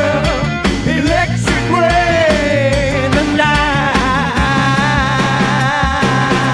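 Psychedelic rock instrumental break: a lead electric guitar plays bending, wavering notes and holds one long note near the end, over bass and a steady drumbeat.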